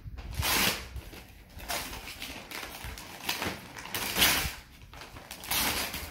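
Wrapping paper being torn and rustled off a gift box by hand, in about five separate rips.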